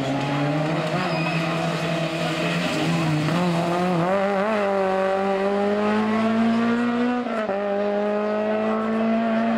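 Honda Civic Type R EP3 rally car's 2.0-litre four-cylinder engine revving high under hard acceleration as it drives past. The pitch climbs slowly through a gear, drops at an upshift about seven and a half seconds in, then climbs again.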